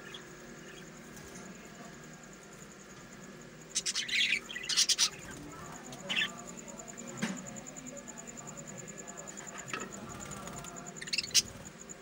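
Budgerigars chirping in an aviary: a loud cluster of sharp, high calls about four seconds in, a few single chirps after it, and another short burst near the end.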